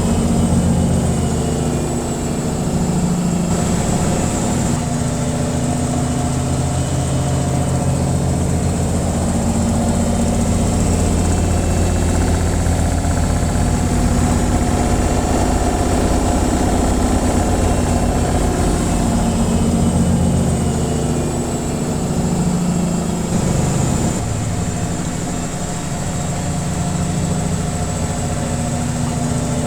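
Washing machine on its spin cycle: a steady motor and drum hum that keeps running with only slight swells and dips in level.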